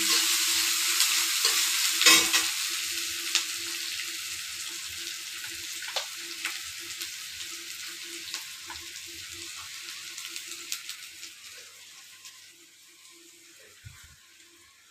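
Chopped onions sizzling in hot oil in a wok while a spatula stirs them, scraping and clicking against the pan. The sizzle fades gradually.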